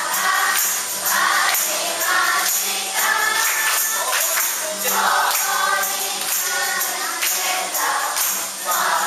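Children and camp leaders singing a song together to an acoustic guitar, clapping their hands in a steady rhythm.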